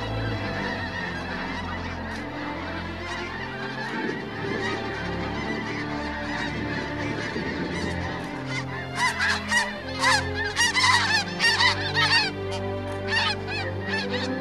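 A flock of snow geese calling, a dense chorus of honks that grows louder and busier about nine seconds in, with steady held low tones underneath.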